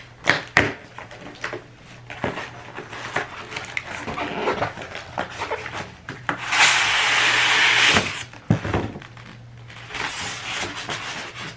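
Cardboard shipping boxes being handled, with knocks and rustling. Just past the middle there is a loud scraping slide lasting over a second as a styrofoam-packed item is pulled out of its box.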